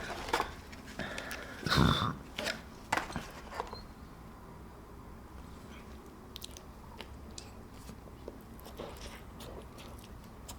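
Close-miked eating: crunchy bites into fast food followed by chewing, with the loudest bite about two seconds in and quieter mouth sounds later on.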